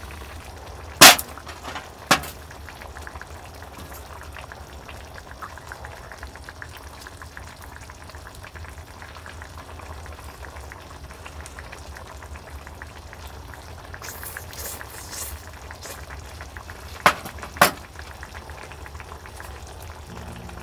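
Mala hot pot bubbling steadily in its pot, with sharp clinks of stainless steel bowls and metal utensils: a loud one about a second in, another a second later, and a quick pair near the end.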